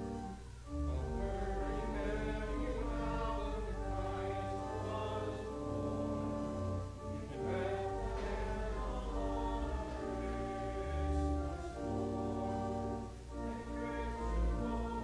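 Church organ playing a Christmas carol in held chords over a sustained bass, with a congregation singing along. The phrases break briefly just after the start and again near the end.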